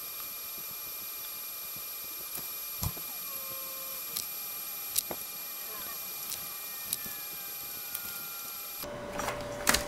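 Faint scattered ticks and taps from handling a wired perfboard and pressing multimeter probes to its pins, over a steady thin high-pitched whine. Near the end the background changes abruptly and a steady mid-pitched tone sets in.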